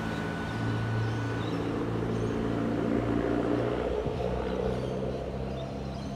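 Double-deck electric suburban train at a station platform, giving a steady low mechanical hum, with a thin high whine that stops about a second and a half in.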